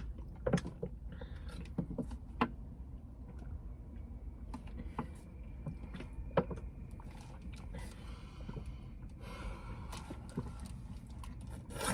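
Quiet room background with a steady low rumble, a few scattered light clicks and knocks, and a soft hiss near the end.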